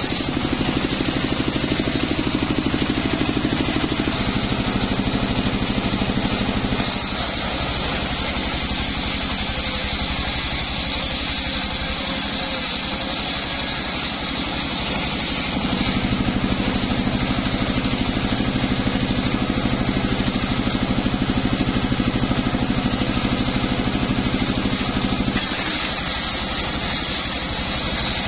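Large circular-saw bench ripping a teak log lengthwise into boards: the blade cuts through the wood over a steady, motor-like drone. The tone changes abruptly a few times.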